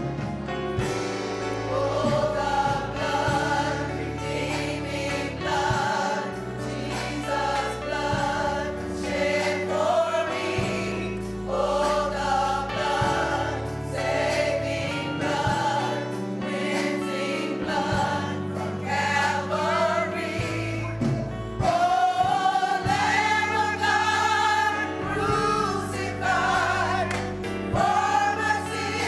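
Gospel choir singing with instrumental accompaniment and sustained bass notes, the singing growing louder about three-quarters of the way through.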